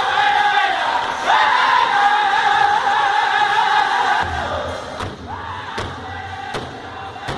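Powwow drum group of men singing together in high-pitched unison around a large powwow drum. About four seconds in the singing drops lower and hard, evenly spaced drumbeats come in, a little more than one a second.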